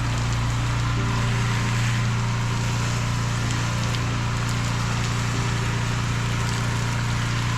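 Steady drone of a softwash pump running, with the hiss of the spray as sodium hypochlorite mix is applied through a softwash gun.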